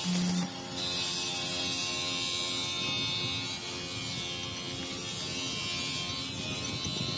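Stick-welding arc buzzing as a rod lays weld onto a broken gear tooth, cutting off about half a second in. Then a steady hiss with a faint hum under it.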